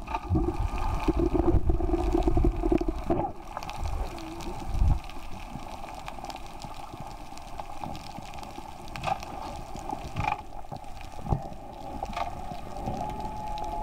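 Underwater, a scuba diver's exhaled regulator bubbles gurgle loudly for the first three seconds or so, then give way to a quieter steady underwater hum. A long held tone begins near the end.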